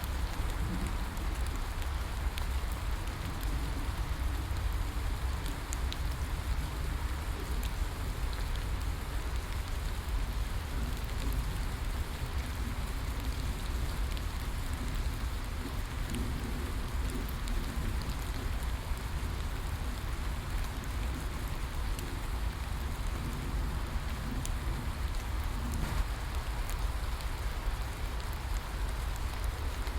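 Steady rainforest rain, an even hiss with scattered single drops ticking close by and a constant low rumble underneath.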